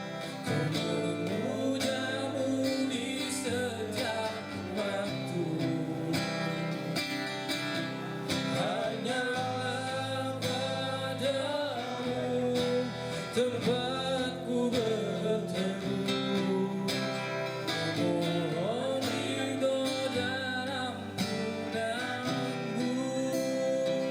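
Music: a slow song with acoustic guitar accompaniment and a gliding melody line, without clear sung words.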